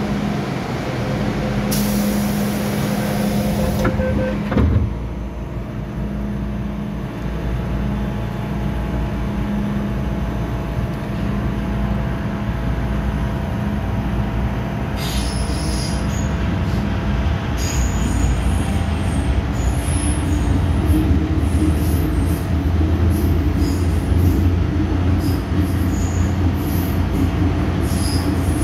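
Inside an MTR M-Train carriage at a station: a hiss and then a knock about five seconds in as the doors close. The train then sets off, and its running noise builds in the second half with scattered high wheel squeals and clicks.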